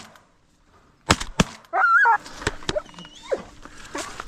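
Shotgun shots at flying ducks: two in quick succession about a second in, then a few more spaced shots, with a loud wavering call between them.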